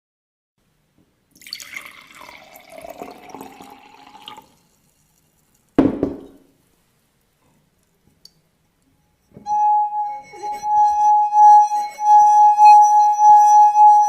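Water poured into a wine glass, its pitch rising as the glass fills, then a single knock as the glass is set down. From about nine seconds in, the wine glass sings: a finger circling its rim draws out one steady ringing tone with a gentle pulsing in loudness.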